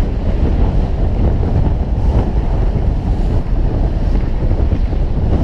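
Steady, heavy wind buffeting the microphone of a hood-mounted action camera on a moving 4x4, a dense low rumble with no pauses.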